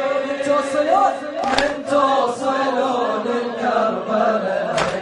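Male voices chanting together in long held notes, the vocal backing of a Shia latmiya, with two sharp hits about three seconds apart.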